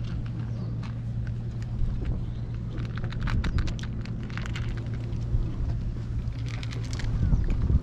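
Several cats eating dry cat food from a plastic tub: quick bursts of small crunching clicks, thickest about three seconds in and again near the end, over a steady low hum.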